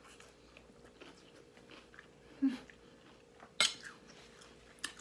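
A person chewing a mouthful of salad with faint, soft crunching. There is a brief low hum of the voice about halfway through and one sharp click a little later.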